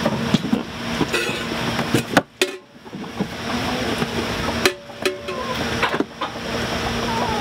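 Goat being hand-milked into a steel pail: a few irregular, sharp squirts and knocks against the pail, with a steady hum in the background. Only a little milk is left in the udder, so the streams are sparse.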